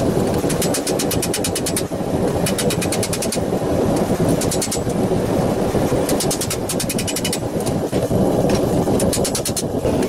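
Quick runs of light hammer taps on a steel gauntlet plate held over a stake, about ten taps a second with short pauses between runs, as the knuckles are teased into shape. A steady rushing roar runs underneath throughout.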